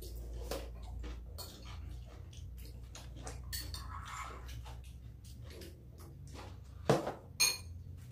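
Table eating sounds: small clicks of spoons and chopsticks against bowls, a soft slurp about four seconds in as soup is drunk from a bowl, and two louder clinks of utensils on dishes near the end, the second one ringing.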